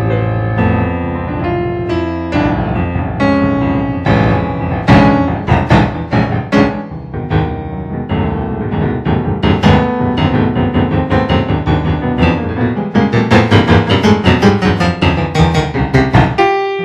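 Solo piano music: held low notes at first, then separately struck notes, building to a quick, dense run of loud notes in the last few seconds.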